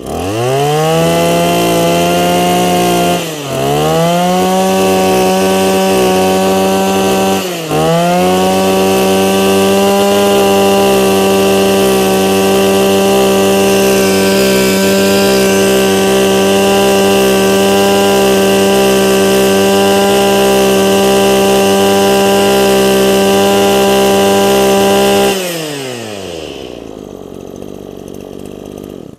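Small two-stroke brush cutter engine, warm and running without choke, revved up to full throttle and held at a steady high pitch. The throttle dips briefly twice in the first eight seconds. Near the end the throttle is released and the engine falls back to a low idle.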